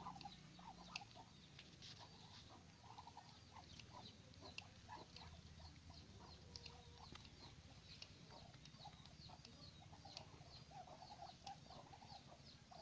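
Faint chicken clucking and short bird-like chirps, scattered irregularly throughout over a low steady background hum.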